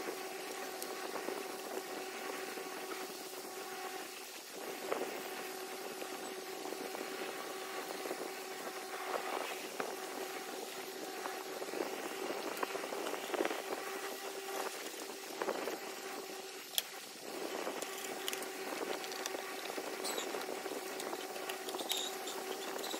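A steady electrical hum under the rustling and scraping of cardboard pieces being handled and slid across a desk, with a few light clicks and taps.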